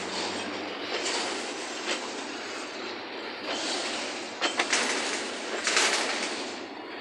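Freight train's boxcars rolling past: steady wheel-on-rail rumble with sharp clicks as wheels cross rail joints, and surges of high-pitched wheel screech about four to six seconds in.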